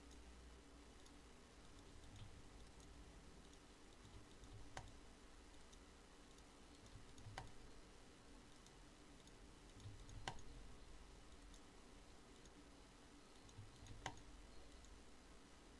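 Near silence: room tone with a low hum and four faint, sharp clicks spaced a few seconds apart.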